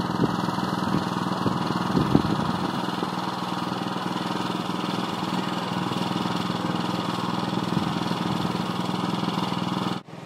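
An engine running steadily at an even speed, with no change in pitch; it drops away abruptly near the end.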